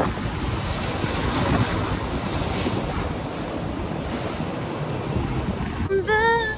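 Wind buffeting the microphone over the wash of ocean surf, a loud, even rush. Near the end, a song with a sung voice comes in.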